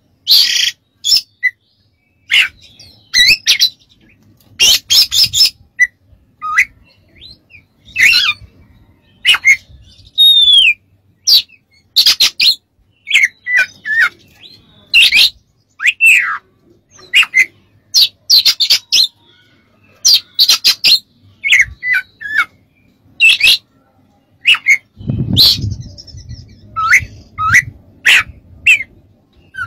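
Oriental magpie-robin singing a loud, varied song of short whistles, sliding notes and harsh clicking notes in quick succession. A low rumble sounds near the end.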